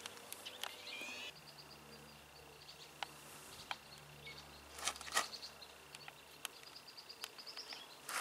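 Faint birdsong outdoors: runs of quick, high chirps repeating over a thin steady high tone. A few soft clicks sound close by, the loudest about five seconds in.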